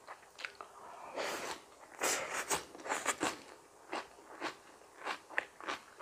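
Close-up crunchy chewing of raw vegetables, a quick string of short, crisp crunches. The crunching is louder and denser between about one and three seconds in.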